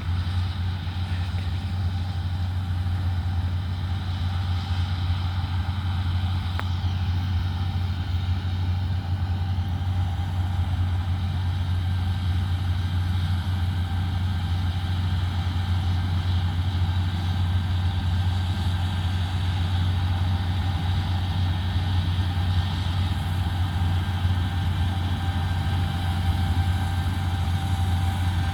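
Heavy harvest machinery running steadily: a deep, even engine drone with a faint steady whine above it.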